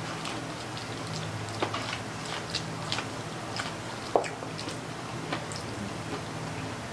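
Eating sounds at close range: chewing and mouth smacks with scattered small clicks while pork baby back ribs are eaten, one sharper click about four seconds in, over a steady low hum.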